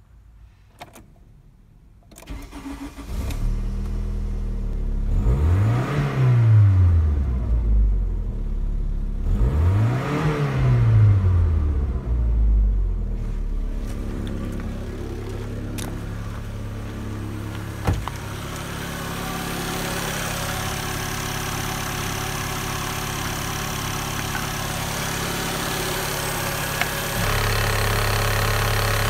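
VW Passat B4's 1.8-litre ABS four-cylinder petrol engine starting about two seconds in. It is revved twice, the pitch rising and falling each time, then settles into a steady idle. Near the end the idle turns louder and deeper with the oil filler cap off.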